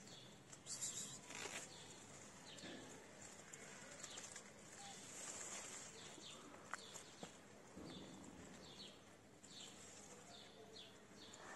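A kitten's short, breathy hiss about a second in, with a weaker hiss around the middle. Small birds chirp faintly and repeatedly in short falling notes throughout.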